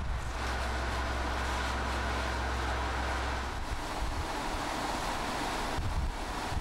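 Steady rushing tyre and wind noise of a car at road speed, with a low hum underneath that drops away about halfway through.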